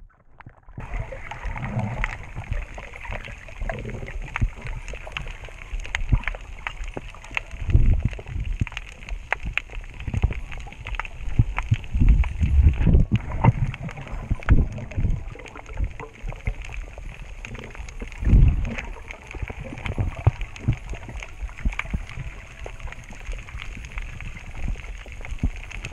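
Underwater sound from a submerged camera: a steady rush of moving water full of small crackling clicks, with several deep rumbling thumps, the loudest near the middle.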